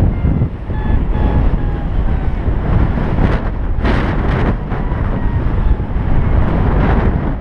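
Loud wind buffeting a paraglider pilot's action-camera microphone in flight, gusting harder a few times. A variometer's short beeps sound over it, mostly in the first few seconds.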